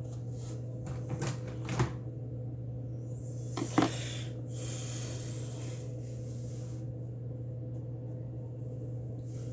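A few light knocks and a short soft rustle over a steady low hum, the sound of small objects being handled.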